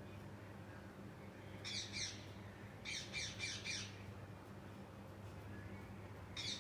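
Ringneck parrots squawking: short bursts of rapid, harsh repeated calls about two seconds in and again about three seconds in, with a steady low hum underneath.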